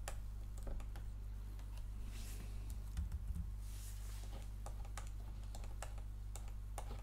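Stylus tapping and scratching on a drawing tablet as handwriting is drawn, in short irregular clicks over a steady low hum.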